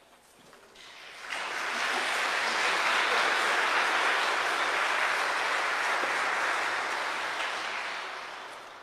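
Audience applauding: the clapping builds about a second in, holds steady, then fades away near the end.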